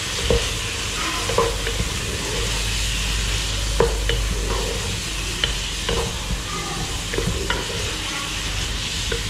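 Chicken and chopped vegetables sizzling in a nonstick pot while a wooden spatula stirs them, knocking and scraping against the pot at irregular moments. The mixture is being fried until its water cooks off.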